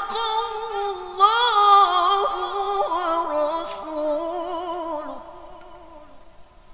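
A man's voice reciting the Quran in the melodic tilawah style through a microphone: one long, ornamented phrase with held notes that fades out about five seconds in, closing the recitation.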